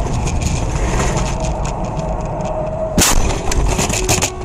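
Car crash on a snowy road: steady road and wind noise, then a loud impact about three seconds in, followed by a few smaller knocks and rattles before the sound cuts off abruptly.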